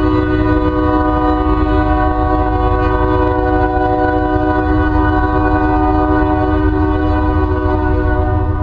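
Ferromex diesel locomotive's air horn held in one long, steady blast, several tones sounding together, over a low rumble; the blast stops right at the end.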